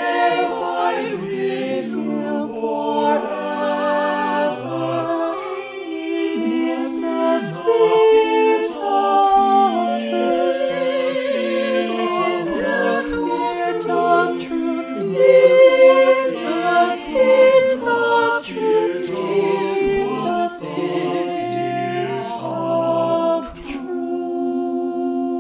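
Unaccompanied choir singing in several-part harmony, with vibrato on the held notes, settling onto a long held chord near the end.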